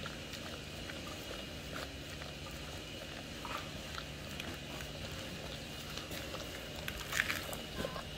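Newborn puppies suckling at the mother dog's teats: soft, wet smacking and clicking, with one brief louder sound, likely a puppy squeak, about seven seconds in.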